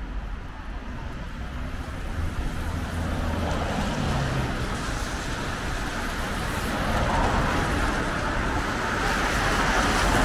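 Car tyres hissing on wet asphalt amid street traffic, the hiss growing louder as a car comes close and passes near the end.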